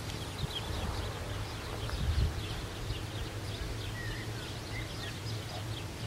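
Small birds chirping and calling in quick short notes throughout, over a low, unsteady rumble of wind on the microphone.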